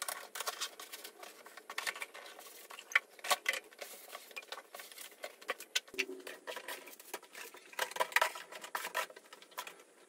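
Irregular light clicks, taps and rubbing from wiping the inside of a storage cabinet with a damp cloth.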